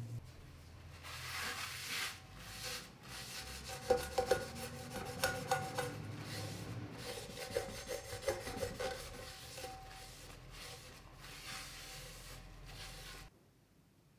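A wad of paper towel rubbed around the inside of an oily frying pan to wipe it out: a steady scrubbing scrape with a few sharper knocks partway through, stopping abruptly near the end.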